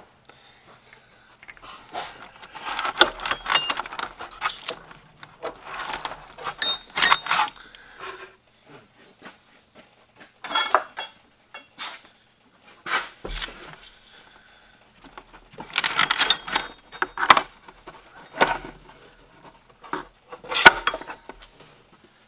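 Hand tools and metal parts clinking and clattering in irregular bunches while a line is worked loose in a car's engine bay, with a brief metallic ring about ten seconds in.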